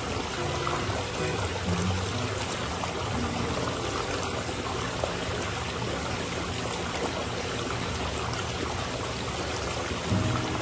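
Steady trickling, splashing water.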